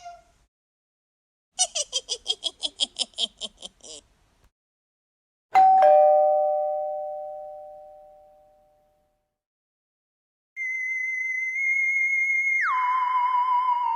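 A sequence of sound effects. First comes a quick trill of about a dozen short chirps. Then a two-note doorbell chime strikes and fades away over about three seconds. Then comes a steady, wavering electronic tone that drops sharply in pitch about two-thirds of the way through.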